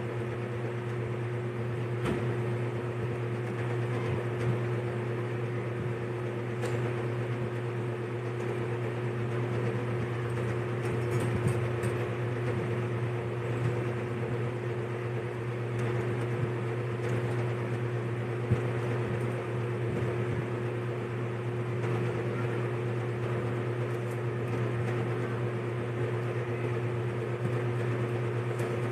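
A steady machine hum, like a fan or appliance motor running, with a few faint short clicks.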